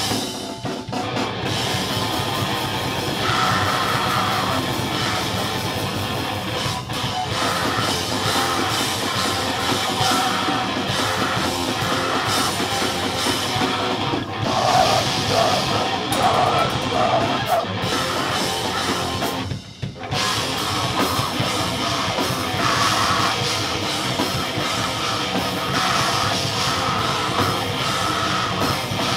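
A live band playing loud, distorted heavy rock: electric guitar through a Mesa amplifier, a full drum kit with crashing cymbals, and shouted vocals. The music drops out for a moment about two-thirds of the way through, then comes straight back in.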